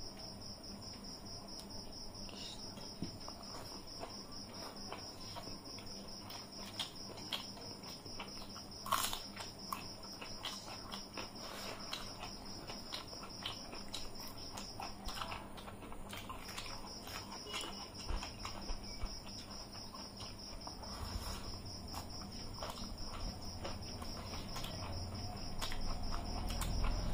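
A cricket trilling steadily, with a break of about a second and a half near the middle, over soft close eating sounds: fingers mixing rice and curry, chewing and lip smacks, with a brief cluster of clicks about nine seconds in.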